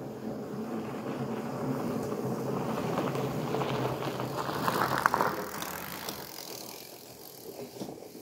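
Pole Taiga fatbike rolling along a forest trail, a steady tyre rumble that grows to its loudest about five seconds in and then fades away.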